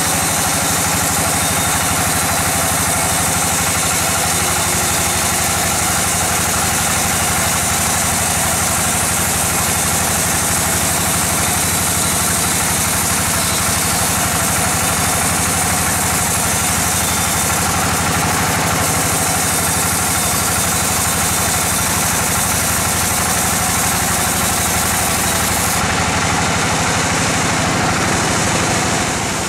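Large log bandsaw running and cutting a slab from a teak log: a steady, unbroken machine drone with the constant hiss of the blade in the wood.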